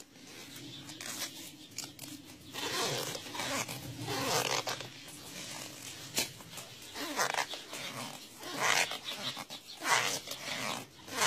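Plastic grafting film crackling and rustling in irregular bursts as it is pulled, stretched and wrapped tightly around a walnut graft union.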